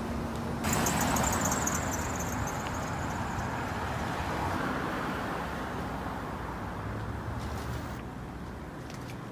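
Road traffic: a vehicle passes close by, rising suddenly about a second in and then fading away over several seconds.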